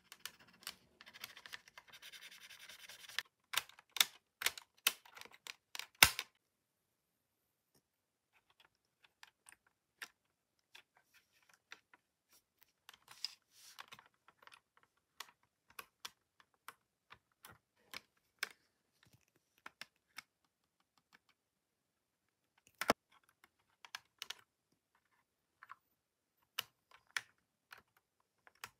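Fingers and a small tool clicking and tapping on the plastic and metal parts of an opened Sony Walkman WM-BF44 cassette mechanism while a rubber drive belt is fitted. A scratchy rubbing opens it, a cluster of sharp clicks follows about four to six seconds in, then sparse faint ticks, and more clicks come near the end.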